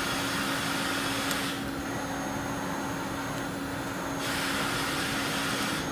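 Kitamura Mycenter 4 vertical machining center's Z axis traversing at rapid, heard as two runs of rushing, airy noise: one at the start and one from about four seconds in. A steady hum sits underneath. The hiss is put down to the spindle head's air counterbalance.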